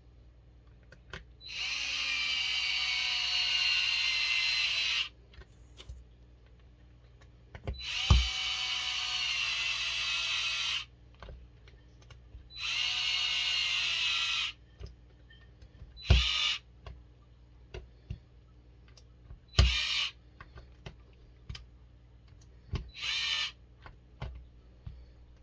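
Small electric screwdriver or drill whirring in three runs of about two to three and a half seconds, then three short blips, its whine dropping slightly in pitch during each run as it drives the screws that hold an RC truck's wheels together. Small clicks of parts being handled come between the runs.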